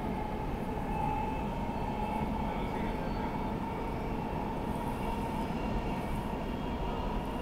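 Dubai Metro train running steadily along an elevated track, heard from inside the carriage: an even rolling rumble with a faint steady whine running through it.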